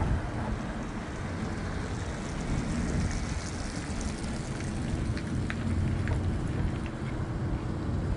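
City street traffic: cars passing close by on a multi-lane road, a steady rush of tyre and engine noise.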